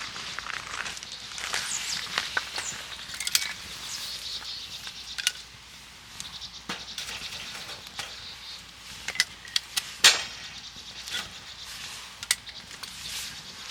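Outdoor ambience with a steady high hiss, overlaid by scattered sharp clicks and knocks, the loudest about ten seconds in.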